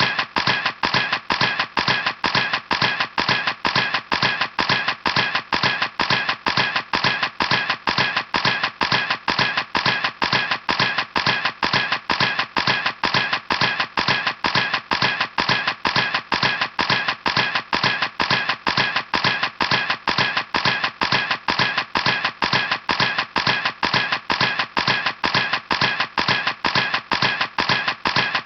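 Camera shutter clicking over and over in a steady, machine-even series, about three clicks a second.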